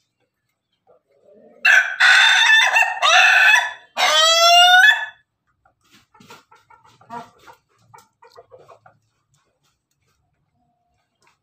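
Ayam ketawa (Indonesian 'laughing chicken') rooster crowing: a loud broken run of about four notes, the last one longer. Faint scattered ticks follow as it pecks at the ground.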